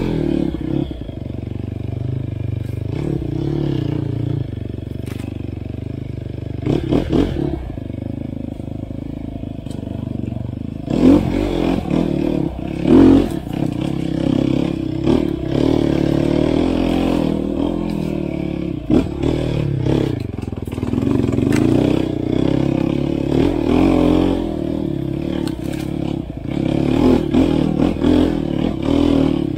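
Enduro dirt bike engine running under way, its revs rising and falling with the throttle, with frequent knocks and clatter from the bike over rough ground.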